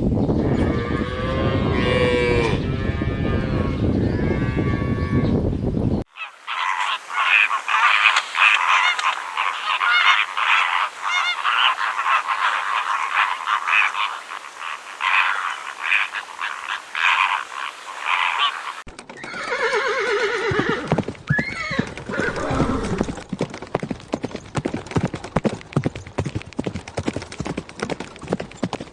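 Cattle mooing for about six seconds. Then comes a stretch of rapid, high-pitched chattering calls from an animal or group of animals. In the last third a horse whinnies and its hooves clip-clop.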